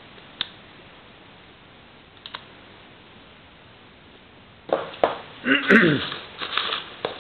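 A few light clicks, then, about five seconds in, a hand rummaging through polystyrene packing peanuts in a cardboard box: loud rustling with a few short squeaks.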